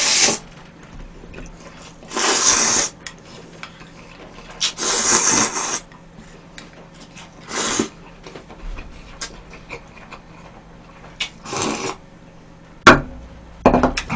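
A person slurping cold buckwheat soba noodles and their dipping broth, in five loud, hissy slurps of about a second or less each, a few seconds apart. A sharp click and a knock come near the end.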